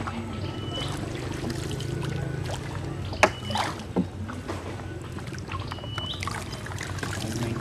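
A boat's engine running with a steady low drone. There are two sharp knocks a little after three seconds in and a few short high chirps.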